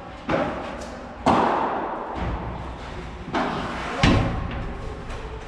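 Padel rally: a ball struck back and forth with four sharp hits, each leaving a short echo. The loudest hit comes about four seconds in.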